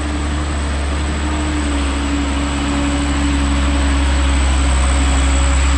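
Diesel engine of a heavy dump truck running close by, a steady low drone with a held hum, growing gradually louder.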